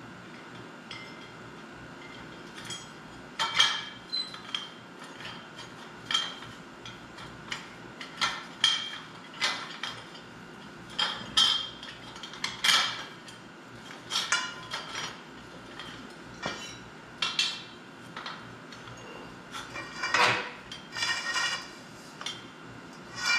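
Steel parts of a knock-down target stand and its hanging AR500 steel plates knocking and clinking together in irregular strikes, each with a short metallic ring. The strikes come at uneven intervals.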